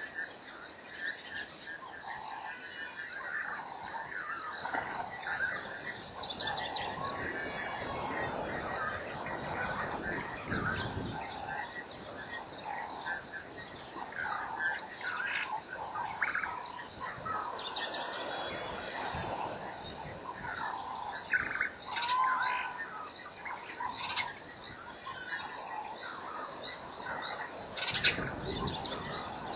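Frogs and birds calling at a waterhole in a continuous chorus of overlapping croaks and chirps.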